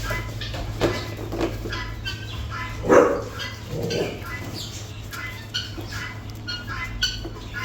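A raccoon and a bull terrier playing rough: many short, high chirps and squeaks, with a louder, lower call about three seconds in.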